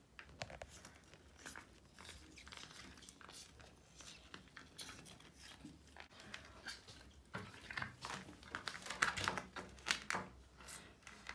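Hands pressing a soft PVC bath mat's suction cups down onto a wet bathtub floor: faint, irregular small clicks and crinkling contact sounds, busier from about seven to ten seconds in.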